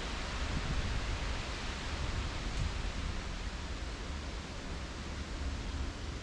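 Steady outdoor background noise: an even hiss over a low, fluttering rumble, with no distinct events.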